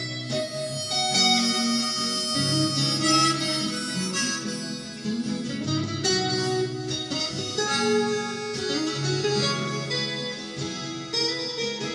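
Acoustic guitar playing an instrumental passage of a folk song, with a held melody line from a reed-like instrument sounding over it.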